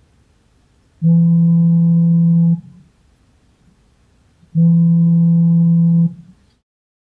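Samsung smartphone's vibration motor buzzing for an incoming call: two steady low hums with overtones, each about a second and a half long, with about two seconds of pause between them. The sound cuts to silence near the end.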